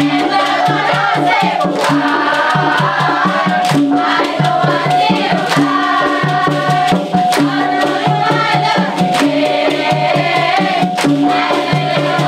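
Dikir Barat troupe singing in chorus over a steady, even percussion beat, with a held melodic note running underneath.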